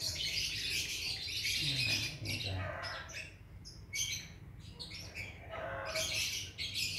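Hand-fed lovebird chicks giving repeated high, harsh begging chirps while being fed.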